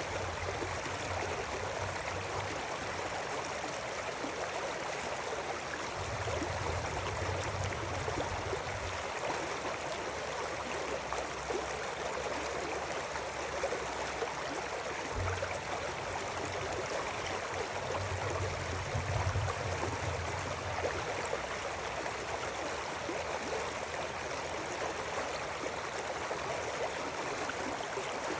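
River water flowing steadily over stones, a continuous rushing and babbling. Low rumbles swell and fade a few times.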